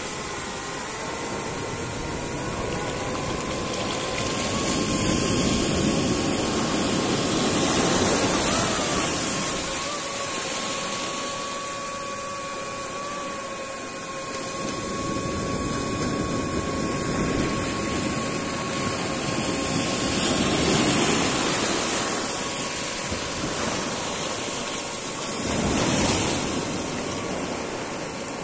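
Steady whine of a DJI FPV drone's motors and propellers under a loud rushing noise that swells and eases several times.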